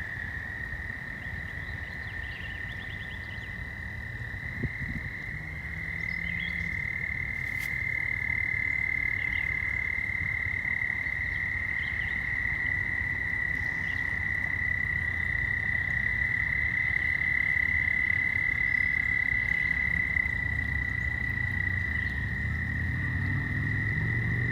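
Frogs calling in a steady, unbroken chorus on one high note, with a low rumble underneath.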